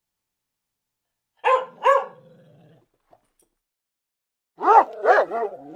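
Dog barking: two sharp barks about a second and a half in, then a quick run of four or five yipping barks near the end.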